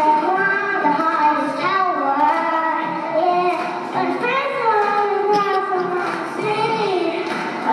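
A young boy singing into a microphone over recorded backing music.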